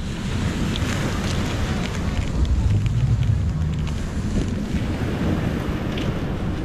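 Wind buffeting the microphone in a heavy low rumble that swells about halfway through, over the steady wash of surf on a beach.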